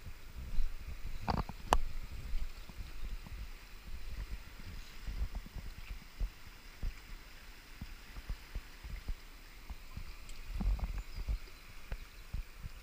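The Aare flowing fast at high water (about 230 m³/s) past a rocky bank: a steady hiss of moving water under irregular low rumbles and thumps, with two sharp clicks about a second and a half in.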